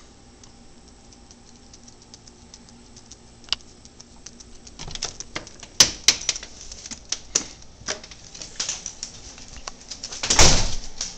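A run of irregular sharp clicks and taps, starting faint and growing louder from about four seconds in, with a brief loud rushing burst about ten seconds in.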